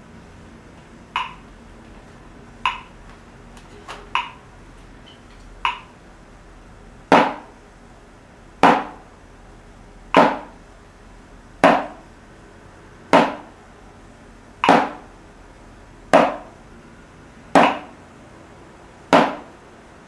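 Metronome clicking at 40 beats per minute, one click every second and a half. Four light clicks are heard alone, then from about seven seconds in a drumstick strikes a practice pad on each click, nine even strokes, counted by a Drumometer.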